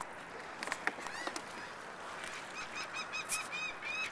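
A bird calling in a fast series of short, high calls, about four a second, starting about two seconds in. A few knocks sound under a second in.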